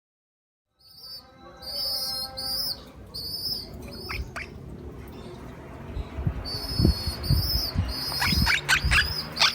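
Baby monk parakeet (quaker parrot) chick giving repeated high-pitched begging calls while being hand-fed formula. The calls come in two runs with a pause between them, and soft low knocks join in over the second half.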